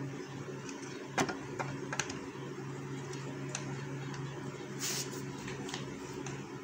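A spoon clicks and taps against a food-processor bowl a few times as yogurt is spooned in, over a steady low hum.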